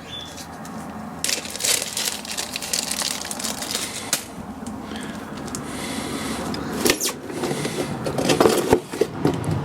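Hands handling small metal fasteners (spring washers, bolts and nuts): a run of crackly rustling and small clicks, then louder clattering near the end.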